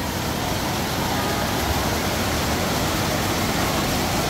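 Water pouring steadily from an artificial waterfall into a swimming pool.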